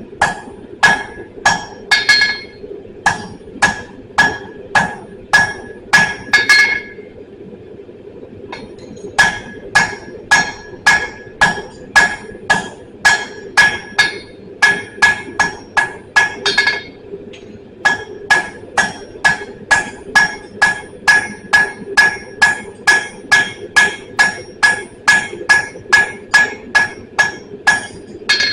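Hand hammer striking steel on an anvil in a steady rhythm of about two to three blows a second, each blow leaving a bright ring. There is a pause of about two seconds near the quarter mark and a short one a little past halfway. A steady hum runs underneath.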